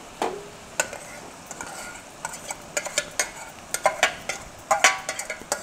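Metal spatula stirring and scraping in a kadai as soaked puffed rice is tipped in from a steel bowl, with irregular clinks of steel on steel, some of them briefly ringing.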